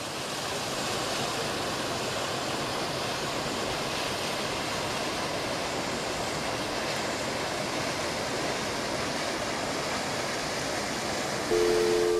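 Steady, even rushing noise in the open air, with no distinct events. About a second before the end, background music starts and becomes the loudest sound.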